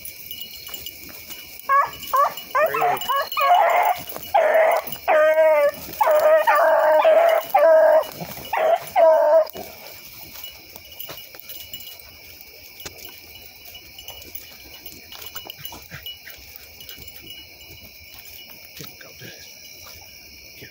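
A rabbit hound baying in a quick run of bawls for about eight seconds while it runs a track, then falling silent, leaving faint rustling of brush.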